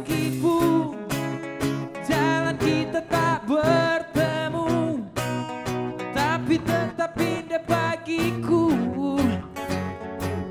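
A pop song played live: a man singing in Indonesian over strummed acoustic guitars.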